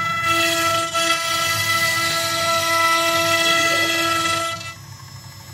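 Spindle of a homemade CNC router running at about 24,000 rpm while its bit carves letters into a wooden board: a steady, loud whine of several tones over cutting noise. About four and a half seconds in it drops sharply quieter and most of the whine falls away.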